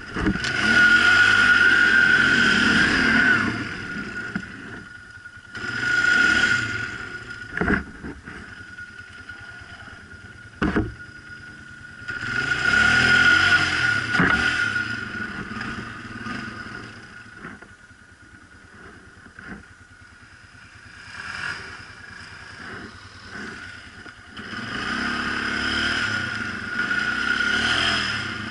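ATV (quad bike) engine revving up in four surges and easing off between them while riding, with two sharp knocks in the quieter middle stretch.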